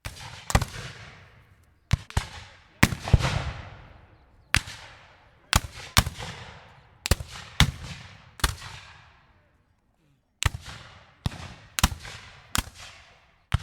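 Musket shots fired one after another at uneven intervals, about fifteen in all, each sharp crack trailing off in a long echo, with a pause of about two seconds midway.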